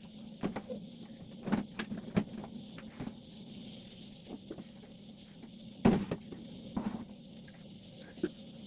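Scattered clicks and knocks of objects being handled and set down during cleaning, the loudest about six seconds in, over a steady low hum.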